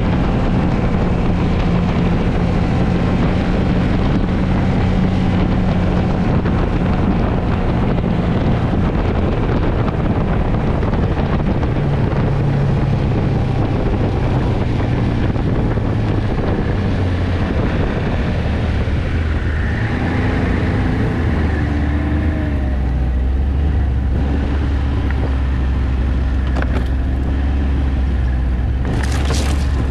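Snowmobile engine running while riding, its pitch shifting a couple of times as the speed changes, with wind on the microphone. A brief high hiss comes near the end.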